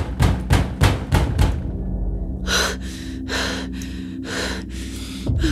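Rapid pounding on a locked door, about five blows a second, stopping after about a second and a half. Then heavy, panting breaths follow over a steady low music drone.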